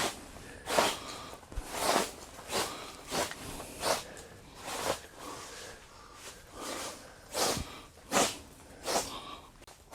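Broom sweeping a floor: a steady run of about a dozen short swishing strokes, roughly one every second.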